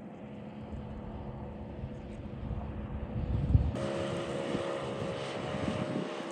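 A steady engine hum with a gusting low rumble, like wind on the microphone. About four seconds in it suddenly gets louder and fuller.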